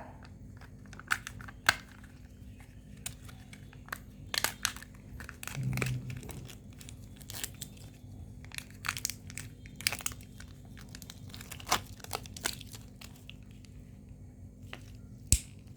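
Candy and Kinder Joy egg wrappers crinkling and tearing as they are unwrapped, in irregular crackles and sharp snaps. A brief low hum comes about six seconds in.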